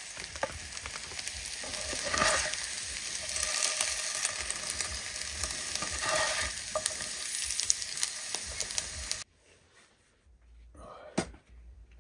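Potatoes and onion sizzling in hot sausage fat in a frying pan, with a metal spatula scraping the pan twice as they are served. The sizzle cuts off suddenly about nine seconds in, leaving near silence with a few light clicks.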